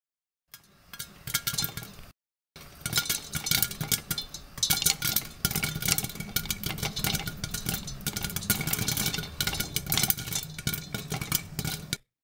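Popcorn kernels popping rapidly in hot oil in a covered pot: dense, irregular pops, with kernels clinking against the lid. The popping breaks off for a moment about two seconds in.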